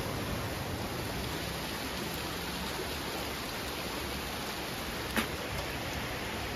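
Steady hiss of running and falling water, with one sharp tick about five seconds in.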